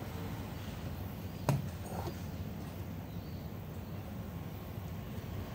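Steady low background hum with a single sharp click about one and a half seconds in, from parts being handled during a diesel fuel filter change.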